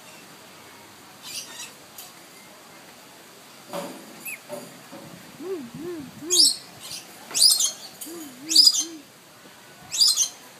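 Blue-streaked lory calling close to the microphone: a series of short, harsh screeches that get louder from about halfway, with soft, low wavering notes between them.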